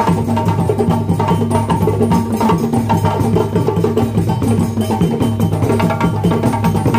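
Live West African hand-drum ensemble, djembe and slung bass drums, playing a fast, steady, interlocking rhythm.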